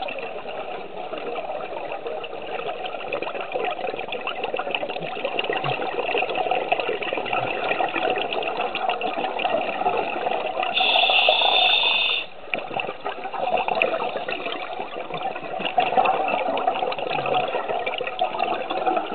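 Underwater sound on a scuba dive: a steady crackle of fine clicks and bubbling from divers' regulator exhaust. Near the middle a louder, brighter rush of bubbles lasts about a second and a half and then cuts off suddenly.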